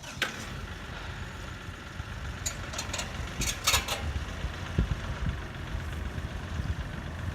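An engine idling steadily, with a few sharp clicks and clanks about two and a half to four seconds in.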